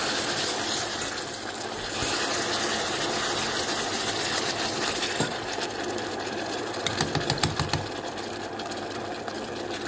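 Hot caramel of melted sugar and butter hissing and bubbling in a metal saucepan as liquid crème caramel is whisked in, with the wire whisk rattling fast against the pan. The whisk knocks more sharply about two-thirds of the way through.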